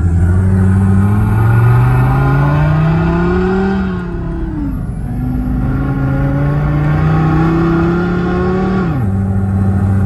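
Synthetic engine sound from an add-on sound simulator, played loud through the Renault Clio 4's cabin speakers. It rises in pitch with the revs as the car accelerates through the gears. The pitch drops sharply at upshifts about four seconds and nine seconds in.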